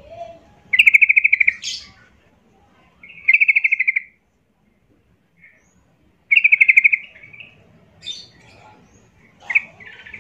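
Yellow-vented bulbul calling: three loud, rapid trilled phrases a few seconds apart, each about half a second long, with a few shorter chirps between them and near the end.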